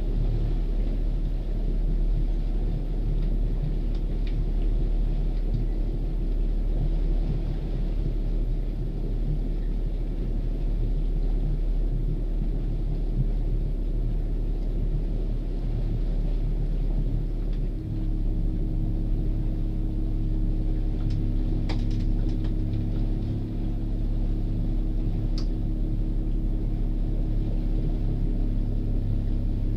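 Motor cruiser's inboard engine running steadily underway, a low rumble heard from inside the wheelhouse. About eighteen seconds in, the engine note settles into a steady hum with a clear pitch, and a few faint clicks come a little later.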